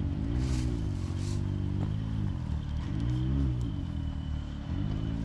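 Side-by-side UTV engine revving up and falling back in several short throttle bursts as the machine crawls up a rock.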